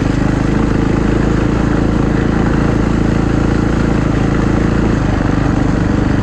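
KTM EXC enduro motorcycle's engine running under throttle at a fairly steady pitch while ridden, heard close up from the bike, with a rushing noise over it.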